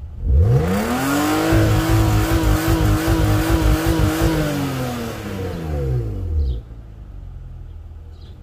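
BMW E36 engine revved hard from idle, held high for about four seconds with a slight waver, then let fall back to idle, heard from behind the car at the exhaust. This is the car on its untuned ECU.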